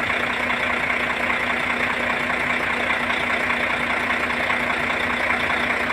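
Truck diesel engine idling steadily, with a constant low hum.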